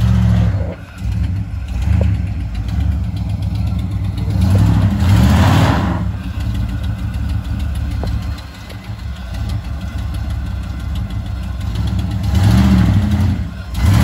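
Ford Bronco's engine running at low speed under load while climbing out of a deep hole on a rocky trail, revving up twice: about four and a half seconds in and again near the end.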